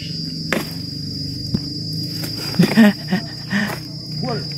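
Steady high-pitched insect chirring, with a few sharp knocks and some short, faint vocal sounds.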